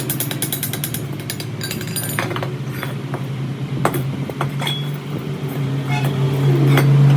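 Metal parts and tools clinking and tapping over the steady hum of a running machine, the hum growing louder near the end.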